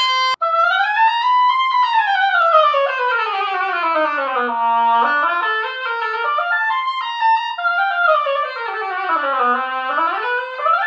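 A brief steady crow on an oboe reed, then an oboe played in fast running scales that sweep twice down to the bottom of its range and back up, trying out a reed just scraped at the tip and the sides of the heart.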